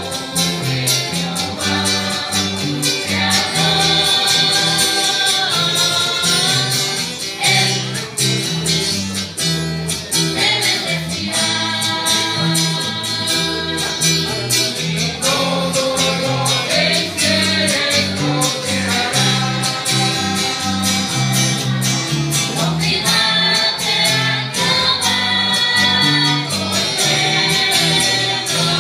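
Live church worship song: a mixed group of men and women singing together over strummed acoustic guitars in a steady rhythm.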